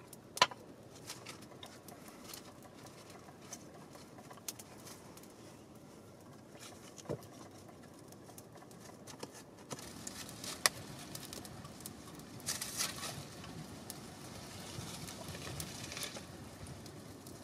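Dry cracked cap polypore fungus being shredded by hand, then scraped with a knife: faint scratching with scattered sharp clicks, and a few short rasps in the second half.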